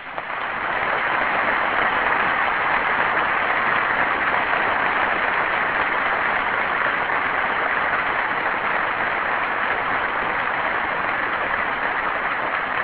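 Audience applauding: steady, dense clapping that swells within the first second and eases slightly near the end.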